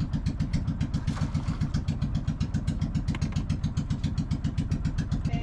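Outrigger fishing boat's engine running steadily, with a fast, even pulsing beat.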